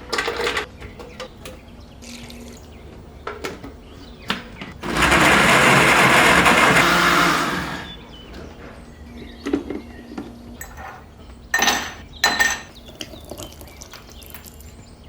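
Amvox ALQ 600 600 W blender motor running at full speed for about three seconds, starting about five seconds in and dying away. Short knocks and clatters before and after it, loudest twice near the end.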